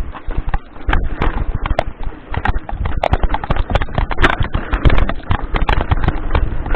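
Mountain bike clattering down a rough rocky trail: a dense, irregular run of sharp knocks and rattles as the wheels hit rocks, over a steady low rumble.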